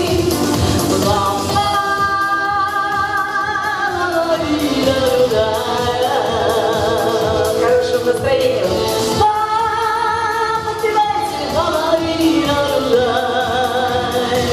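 A woman singing a pop song in long held notes with vibrato and sliding pitch, over instrumental backing music.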